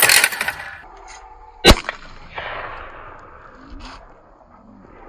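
A manual clay target thrower snapping to launch a clay, then about a second and a half later a single sharp shotgun shot, the loudest sound, followed by a long fading echo. The clay is hit.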